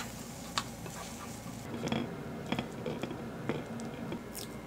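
Wooden spoon stirring scrambled eggs in a pan and then scooping them onto a ceramic plate: light scrapes and a few sharp taps over a low steady hum.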